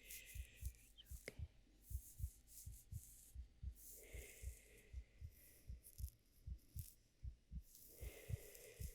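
A steady heartbeat of regular, soft low double thumps. Twice, around four seconds in and again near the end, it is joined by a faint breathy sound.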